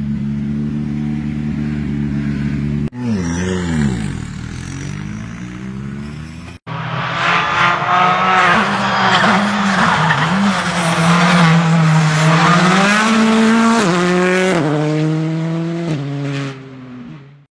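Hyundai i20 R5 rally car's 1.6-litre turbocharged four-cylinder engine, first idling steadily. After a cut, an engine note falls away. Then the car comes through a tyre chicane under hard throttle, revving with stepped gear changes in the last few seconds.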